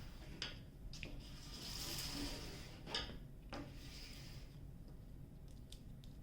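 Faint handling of a diamond-painting canvas as it is being covered up: a few light taps and clicks, with a soft rustle about two seconds in.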